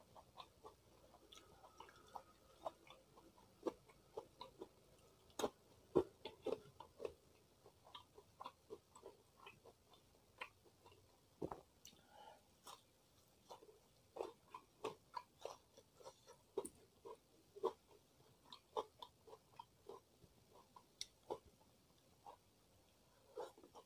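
A person chewing food close to the microphone: many short, irregular crunches and wet mouth clicks, a few a second.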